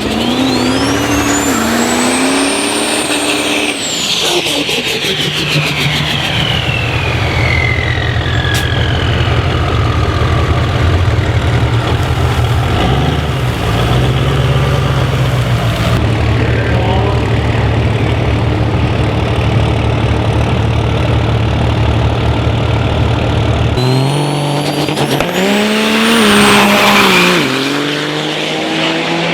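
Turbocharged Cummins diesel drag truck under hard acceleration. A high turbo whistle and the engine note climb, then fall away. The engine then holds a long steady low drone, and near the end it revs again with another whistle rising and falling.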